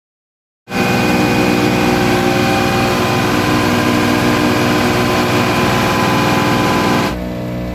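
A ship's general service pump running steadily among engine-room machinery: a loud, even mechanical drone with several held tones, starting suddenly after a moment of silence. Near the end it drops to a quieter, different machine sound.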